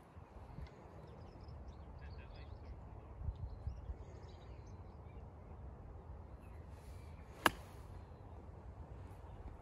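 Golf iron striking the ball on a chip shot: one sharp click about three quarters of the way through, over a steady low rumble with faint bird calls.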